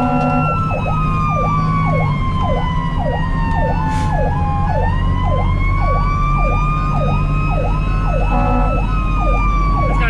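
Fire engine sirens heard from inside the cab over the engine's drone: one siren in a fast yelp, about two sweeps a second, while a second wail falls slowly for the first half and then climbs again. A single click sounds about four seconds in.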